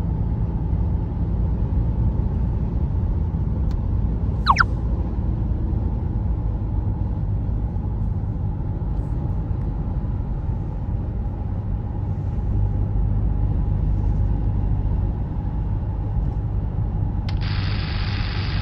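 Steady low rumble of a car driving, heard from inside the cabin. About four and a half seconds in, a brief whistle falls sharply in pitch, and near the end a steady hiss joins.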